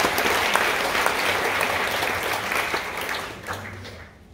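Audience applauding, a dense clapping that fades away over the last second or so.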